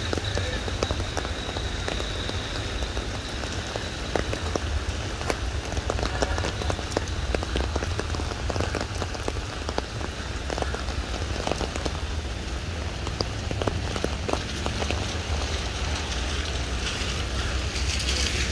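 Steady rain falling on water, pavement and leaves, with many individual drops ticking sharply close by.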